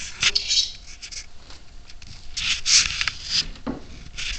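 Irregular bursts of rustling and scuffing noise, loudest about two and a half to three and a half seconds in, with a short knock near the end.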